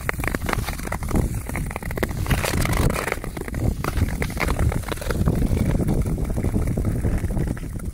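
Nordic skate blades gliding and scraping over frosty new lake ice in irregular strokes, with wind buffeting the microphone.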